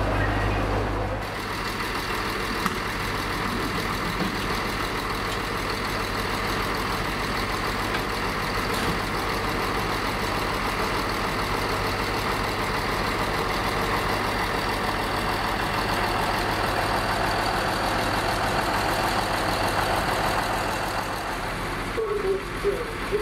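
RA1 diesel railbus idling while it stands at the platform, a steady engine rumble. A different low hum is heard for the first second, and a voice joins near the end.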